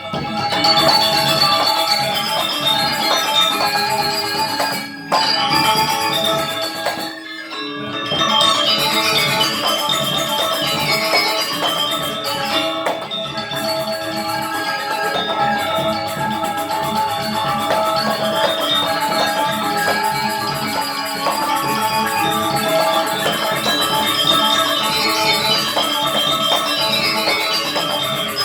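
Balinese gamelan gong kebyar playing: dense ringing bronze metallophones and gongs with percussion, breaking off sharply twice in the first eight seconds and then running on.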